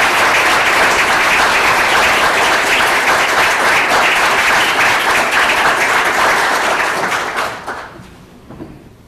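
Audience applauding, dying away about seven and a half seconds in.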